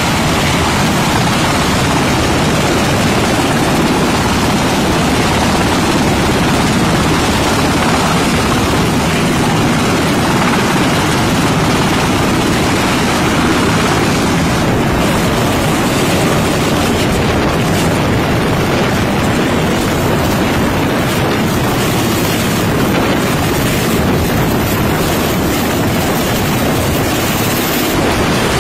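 MH-60 Seahawk helicopter hovering close by: loud, steady rotor and turbine noise.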